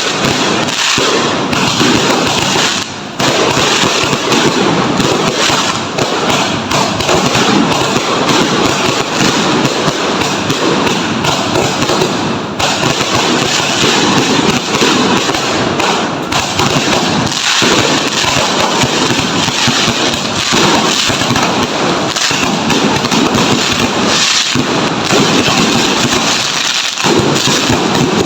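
Fireworks and firecrackers going off in a dense, continuous barrage, with many overlapping bangs and crackles. It barely lets up, pausing only briefly about three seconds in.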